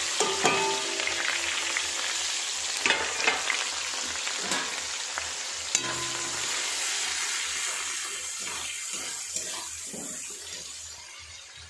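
Freshly added sliced onions sizzling in hot oil in a steel kadai, the sizzle loud at first and dying down steadily as the oil cools around them. A spatula clinks and scrapes against the pan a few times as they are stirred, near the start and again around three and six seconds in.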